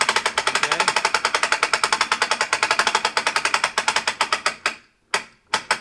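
Ratchet of a bow draw board's winch clicking rapidly, about fifteen clicks a second, as the winch is run to let the drawn compound bow down. The clicking stops suddenly a little before the end, followed by a few single clicks.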